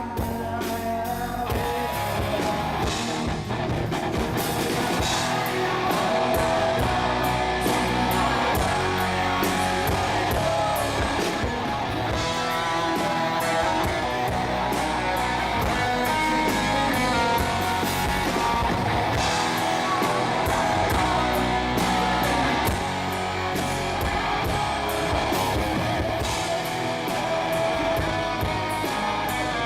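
Live rock band playing, led by guitar over a drum kit, at a steady loud level.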